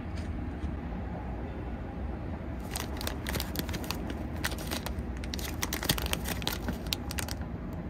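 Plastic snack packaging crinkling in a dense run of sharp crackles that starts a few seconds in and lasts about five seconds, over a steady low rumble.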